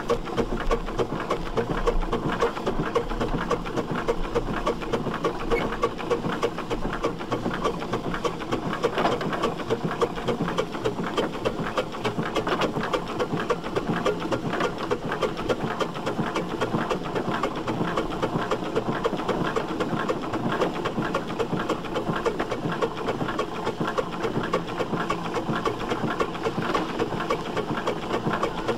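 1910 Davey Paxman agricultural steam traction engine running with a rapid, steady mechanical beat.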